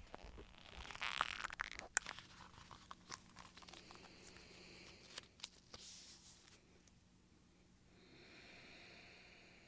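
Faint wet, sticky clicks and crackles as a facial peel mask is squeezed from a tube and worked onto the skin by hand, thickest in the first two seconds and thinning out. Near the end, a soft, even rubbing of the hand over the cheek.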